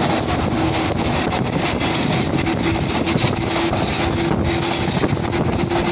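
Shinano Railway 115-series electric train running, heard through an open side window: a loud, steady roar from the traction motors with a humming tone, mixed with wind buffeting the microphone.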